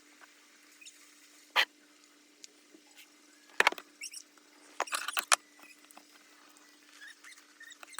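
Scattered small clicks and taps, a loud one about a second and a half in and a quick cluster around the middle, over a faint steady hum.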